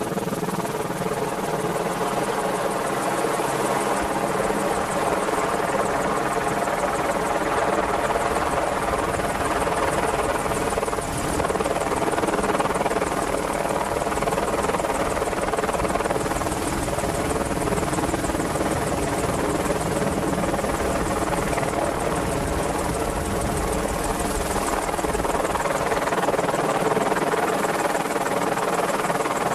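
AgustaWestland Merlin (AW101) helicopter running steadily, its three turbine engines and rotors giving a dense, even hum laced with steady tones.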